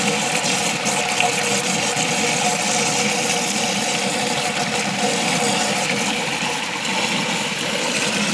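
Water gushing steadily from the end of a black plastic hose into a small pool of water.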